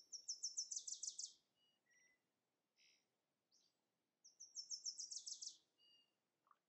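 A songbird singing faintly: a quick run of high, repeated notes that steps down in pitch and lasts about a second and a half, heard at the start and again about four seconds in, with a few single chirps in between.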